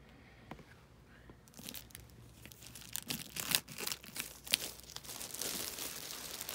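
Clear plastic wrapping crinkling and tearing as it is cut open with scissors. It starts about a second and a half in with sharp crackles and becomes a denser crinkle toward the end.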